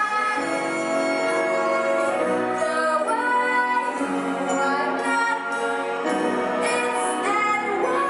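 Music with singing voices holding and sliding between notes over instrumental accompaniment.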